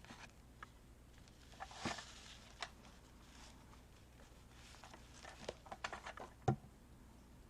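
Faint handling of paper and craft materials on a tabletop: scattered light taps and rustles, busier in the second half, with one sharper tap near the end.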